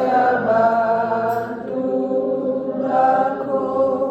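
Several voices singing together in a slow, chant-like way, holding long notes that change about once a second.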